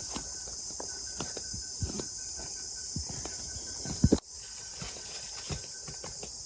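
Footsteps, irregular and unhurried, over a steady high drone of crickets and insects. A sharper double knock comes about four seconds in.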